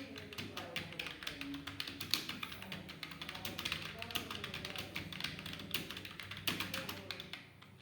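Rapid typing on a computer keyboard: a fast, uneven stream of key clicks that pauses briefly near the end.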